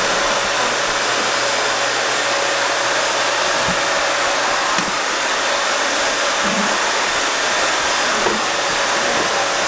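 Canister vacuum cleaner running steadily, an even rush of air with a constant whine in it.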